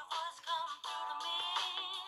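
Nokia N70 ringtone playing through the phone's loudspeaker: a synthesized melody of wavering, singing-like notes.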